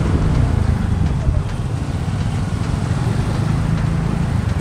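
Motorcycle riding along a road: engine and road noise as a steady low rumble.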